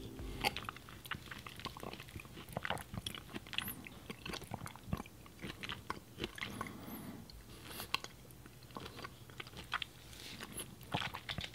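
Close-miked eating sounds: faint, irregular mouth clicks and chewing as the frozen yogurt with mango is tasted.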